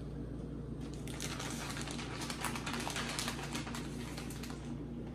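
A plastic bag of shredded cheese crinkling and rustling as a hand digs in and pulls out cheese: a dense run of irregular crackles from about a second in until near the end, over a steady low hum.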